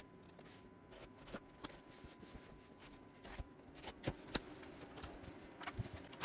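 Cardboard shipping box being cut open with a small box cutter and handled: faint scraping and rustling of cardboard and plastic wrap, with scattered taps and clicks, the loudest a little after four seconds in.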